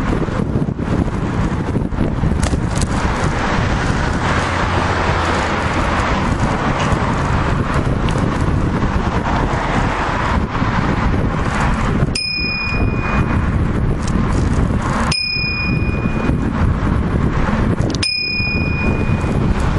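Steady wind rush on the microphone and tyre noise from a moving bicycle. Past the middle, a bicycle bell rings three times, about three seconds apart, each a short clear ring, warning cyclists standing on the path ahead.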